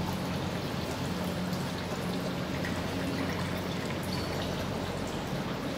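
Steady rushing background noise with a low hum beneath it, unchanging throughout.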